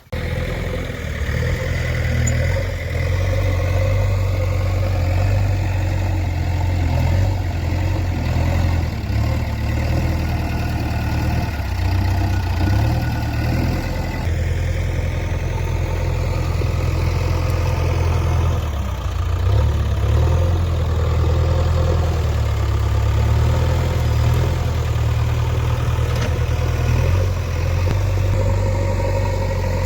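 Diesel engine of a JCB 3DX backhoe loader running steadily with a deep drone, its note shifting briefly a couple of times.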